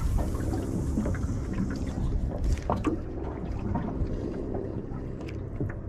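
Wind on the microphone and water slapping against the hull of a small boat, a steady low rumble with a few light knocks and clicks.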